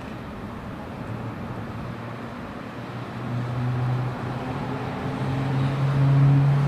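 EP09 electric locomotive approaching with a passenger train. Its low hum grows louder from about halfway through, the tone rising slightly in pitch as it nears.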